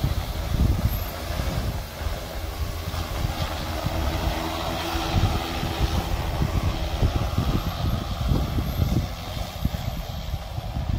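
Multirotor crop-spraying drone's rotors humming as it flies low over the paddy, the hum fading in the second half as it moves away. A gusty low rumble of wind on the microphone runs under it and is the loudest part.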